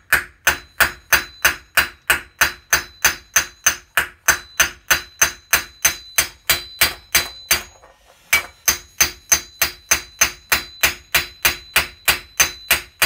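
Planishing hammer striking a dished steel knee cop on a steel ball stake, about four even blows a second with a short metallic ring after each. There is a brief pause about two-thirds of the way through. Each blow rings the same, the sound of the flat hammer face meeting the steel squarely.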